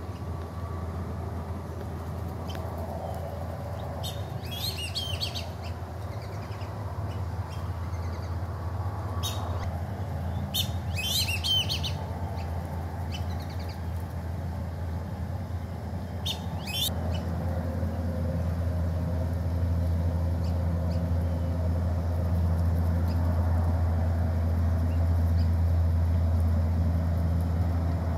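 Black-bellied whistling-ducks giving high whistled calls in three short bursts, about four, eleven and seventeen seconds in, over a steady low rumble that grows louder in the second half.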